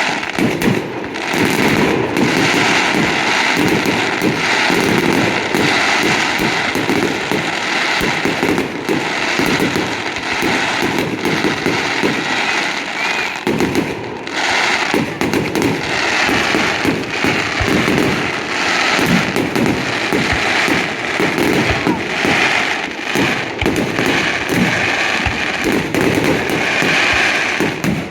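Big fireworks display: a dense, continuous barrage of bangs and crackling shells with no let-up, easing for a moment about halfway through.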